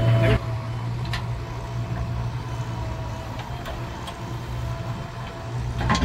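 JCB 3DX backhoe loader's diesel engine running steadily at low revs, a deep even hum, with a few light clicks.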